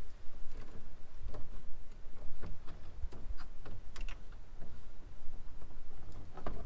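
Irregular light clicks and taps of a screwdriver and copper wires against the metal of an electrical breaker panel as wires are worked into place.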